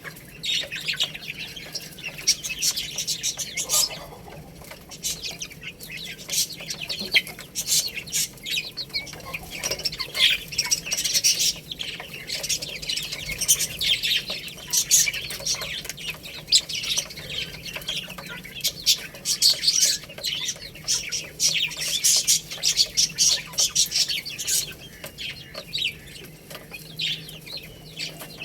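A group of baby chicks peeping continuously, many short high-pitched chirps overlapping, mixed with frequent sharp clicks, over a faint low steady hum.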